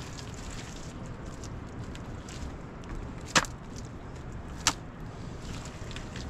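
Two sharp knocks about a second and a half apart, over a steady low rumble.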